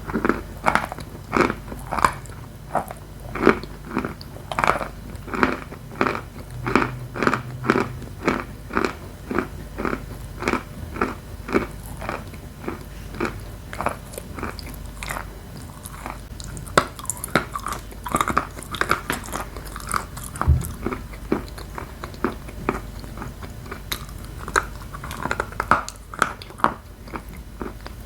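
Edible chalk (purple Astana with dry, crunchy Khrapovsky chalk) being bitten and chewed close to the microphone. The chewing crunches in a steady rhythm of about one to two a second for the first half, then turns softer and less regular.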